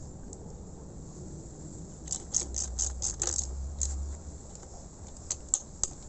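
Light metallic clicks and clinks of hand tools and metal parts during reassembly of an air-compressor head: a quick run of about four clicks a second from about two to four seconds in, then a few sharp single clicks near the end.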